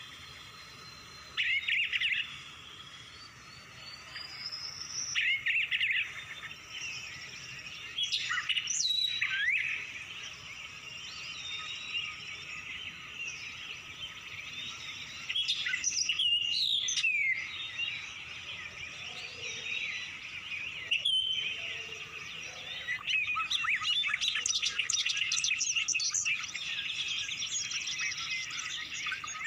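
Wild birds chirping and calling in short whistled phrases and sweeps, several at once, turning into a busy run of rapid chattering in the second half.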